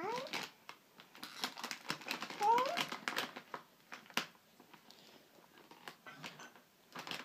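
Large plastic crisp packet crinkling and crackling in a toddler's hands, in fits and starts. A young child's voice makes two short rising squeaks, one at the start and one about two and a half seconds in.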